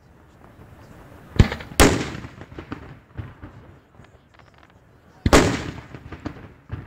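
Aerial fireworks shells bursting: two sharp bangs about a second and a half in, another about five seconds in, each followed by a long rolling echo, with smaller cracks between them.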